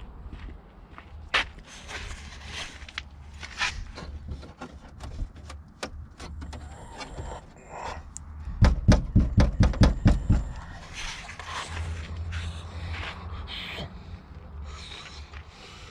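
Workshop knocks and clicks on metal, with a run of about ten quick strikes a little past the middle, like hammering, over a low steady hum.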